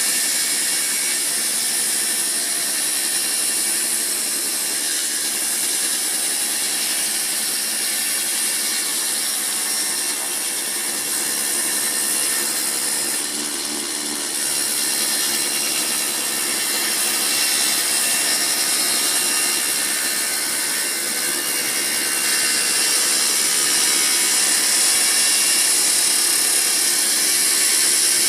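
Home-assembled table saw running, a steady, loud, high-pitched whine over a hiss.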